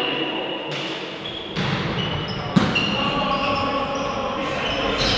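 Volleyball rally in a sports hall: the ball is struck several times with sharp thuds, the loudest about two and a half seconds in, among short high squeaks and players' voices echoing in the hall.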